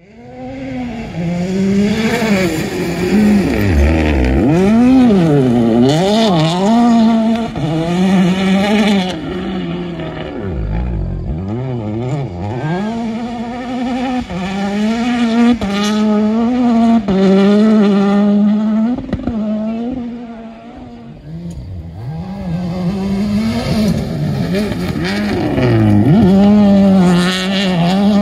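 Rally car engine driven hard on a gravel stage, the revs repeatedly rising and falling through gear changes and braking, with hissing spray from the tyres. It is loudest about five seconds in and again near the end, dropping back briefly a little past two-thirds of the way through.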